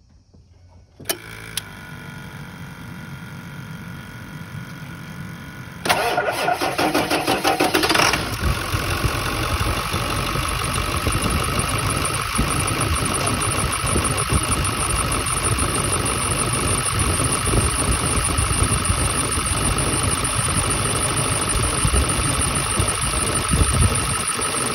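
A Ford 7.3 L Power Stroke V8 turbo diesel being started for the first time after its fuel bowl was opened for a new fuel pressure spring: a click about a second in and a few seconds of quieter steady sound, then a sudden jump in loudness about six seconds in as the engine comes to life, settling into a steady idle.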